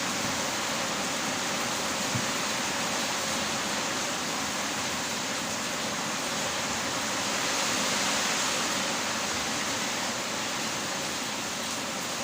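Heavy rain falling, a steady dense hiss that swells slightly about eight seconds in.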